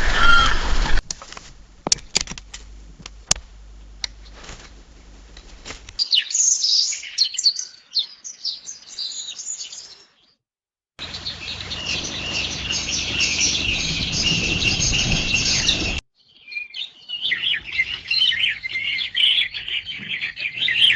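A string of separate bird recordings joined by abrupt cuts: a few sharp clicks, then high chirping and calling birds. A second of silence about ten seconds in is followed by a denser chorus over background noise, and near the end by more quick chirps.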